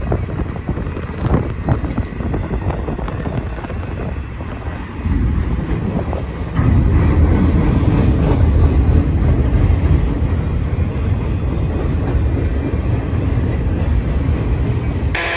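Freight train rolling past, a steady low rumble of wheels and cars that grows louder about halfway through. Gusty wind buffets the microphone, most plainly early on.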